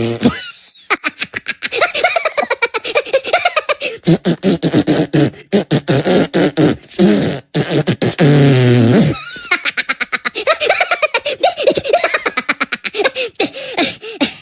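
Vocal sounds with sliding, up-and-down pitch over a fast run of clicks, like beatboxing, with a loud held note at the start and again about eight seconds in.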